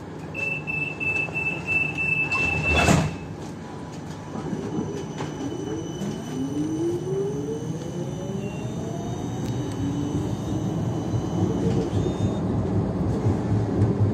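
Siemens Combino Plus tram: a high beeping warning tone for about three seconds ends in a heavy thump. The traction motors then pull away with a rising whine as the running noise builds.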